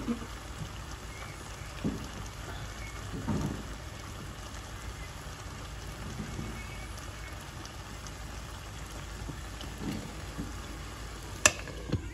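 Food cooking in a pot on a stovetop: a steady pattering hiss, with a few soft low knocks and one sharp click near the end.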